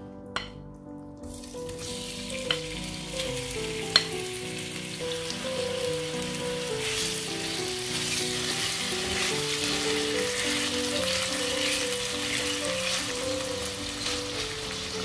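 Diced chicken breast sizzling as it fries in hot vegetable oil in a nonstick pan, stirred with a silicone spatula; the sizzle starts about a second in and grows louder. Three sharp clicks come in the first four seconds, the last one the loudest.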